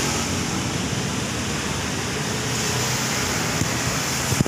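Steady rumble and hiss of background vehicle noise, with two short knocks near the end.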